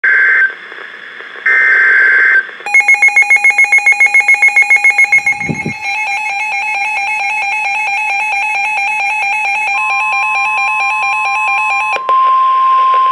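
NOAA Weather Radio emergency alert: two short bursts of screechy digital SAME header data, then an electronic alarm beeping rapidly for about three seconds. The alarm then turns into a continuous multi-tone alarm, with the steady 1050 Hz weather-radio warning tone sounding over the last few seconds.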